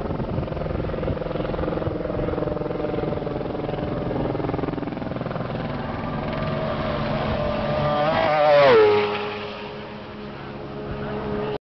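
A racing sidecar outfit's engine, revving hard, comes closer and louder and passes at speed about eight and a half seconds in, its pitch dropping sharply as it goes by. It then fades away, and engine sound grows louder again near the end.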